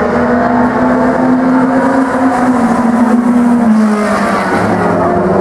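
Several four-cylinder mini stock race cars running hard in a pack. One engine note holds steady, then drops in pitch about four seconds in.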